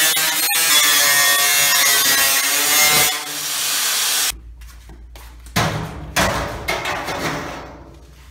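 Angle grinder with a cutting disc slicing through the sheet-steel skin of a garage door, running steadily under load for about three seconds and then winding down. A few separate knocks and scrapes follow as the cut is finished off.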